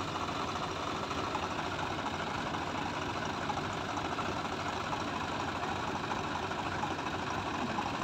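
Diesel tractor engine running steadily.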